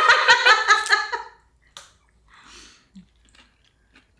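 Soft eating sounds at a table: quiet chewing with a few faint clicks and a short slurp-like noise, after a voice in the first second.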